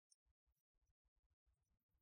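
Near silence, with only faint scattered crackles.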